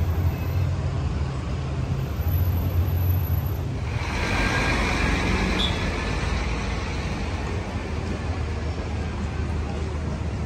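Road traffic: cars passing on a busy city street, a steady low engine hum under tyre noise that grows louder and hissier about four seconds in.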